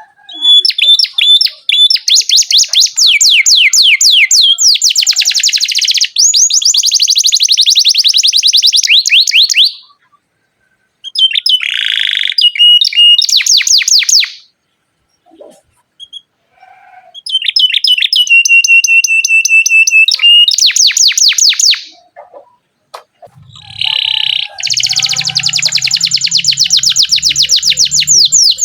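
Domestic canary singing long rolling trills: phrases of rapid repeated notes, a few held whistled notes among them. The song breaks off briefly about ten, fifteen and twenty-two seconds in.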